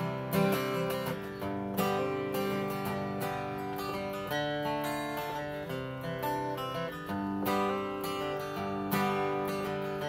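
Acoustic guitar played solo, chords strummed in a steady rhythm.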